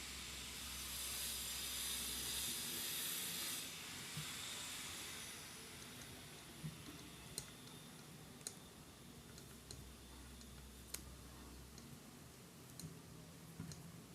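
Faint scattered clicks and handling noises from small hand work on a ceiling fan's coil leads and wires, after a high hiss that stops about four seconds in.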